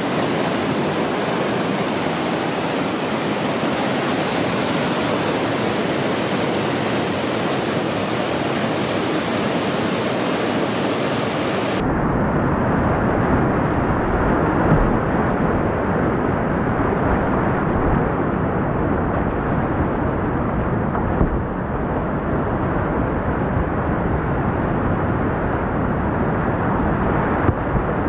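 Whitewater river rapids rushing steadily. About twelve seconds in, the sound turns muffled and deeper, with a low rumble and a few knocks, heard from on the kayak in the rapids.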